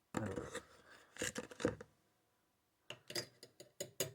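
A spoon scraping in a mug of hot chocolate mix, then tapping sharply against the mug about three times a second as it stirs.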